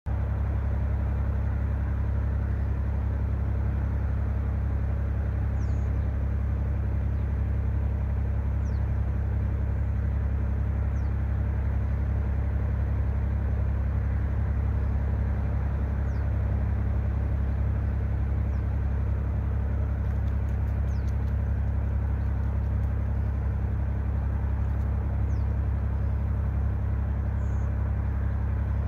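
Steady low mechanical hum, like an engine running at constant speed, with no change in pitch or level. A few faint, short high chirps come now and then over it.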